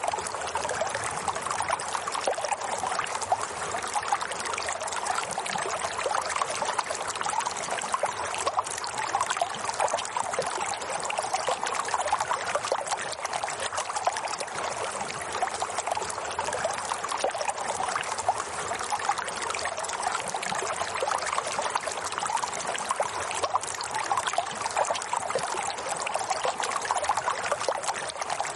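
Running water, a steady, unbroken trickling flow.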